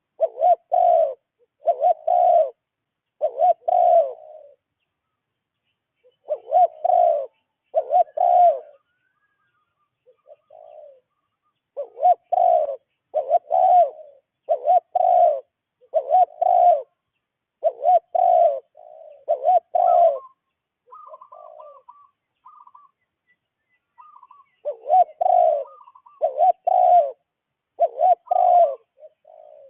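A bird calling with low notes in runs of two to five, each note under a second long, the runs repeated with pauses between them. A few faint, short, higher notes come about two-thirds of the way through.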